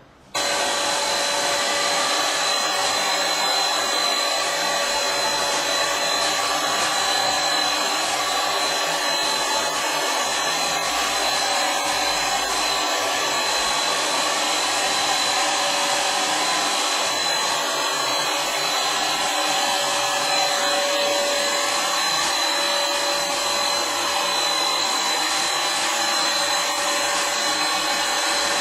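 Handheld electric paint sprayer running steadily while spraying paint onto a cabinet, a blower noise with a steady high whine; it cuts in abruptly at the very start.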